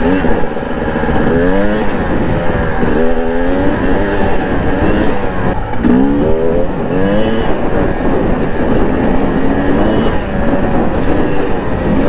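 KTM 250 dirt bike engine running under way, its pitch rising and dropping several times as the rider opens and eases the throttle.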